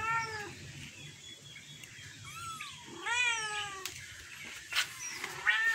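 Young kittens mewing: four short high-pitched mews, the loudest about three seconds in. A couple of sharp taps come near the end.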